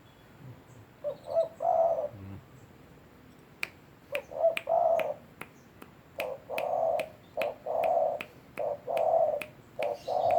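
A caged dove cooing, starting about a second in, in repeated phrases of a few short notes running into a longer coo. Sharp clicks at about two a second sound through the second half.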